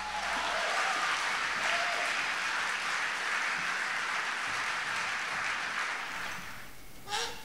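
Audience applauding at the end of a song. The clapping fades out about six seconds in, and a short vocal sound comes just before the end.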